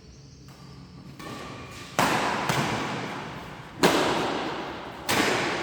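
Badminton rackets hitting a shuttlecock in a rally: four sharp cracks about a second or more apart, starting about two seconds in, each ringing out in the echo of a large sports hall.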